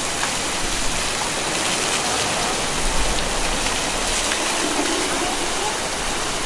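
Water splashing and spraying off the paddles of a turning wooden water wheel, over rushing stream water: a steady splashing rush.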